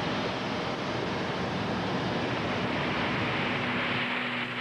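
A steady rushing noise with no clear source. Near the end a low held note comes in.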